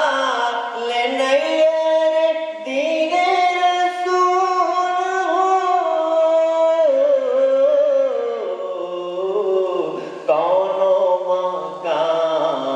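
A man chanting devotional Urdu verse solo into a microphone, holding long, slowly wavering notes with short breaks between phrases.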